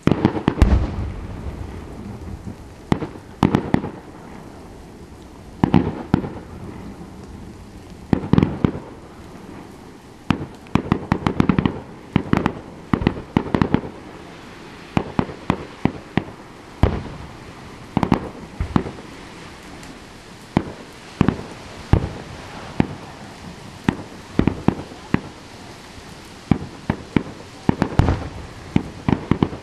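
Aerial fireworks shells bursting in a long series of sharp bangs, often several in quick succession, a cluster every second or two; the loudest comes in the first second.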